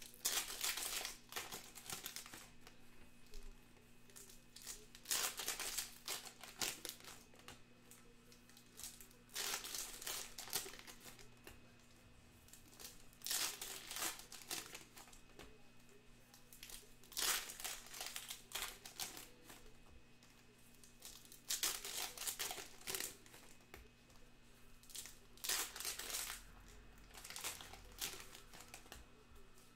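Foil trading-card pack wrappers (2021 Bowman Sapphire) being torn open and crinkled by hand, in short bursts about every four seconds as one pack after another is ripped.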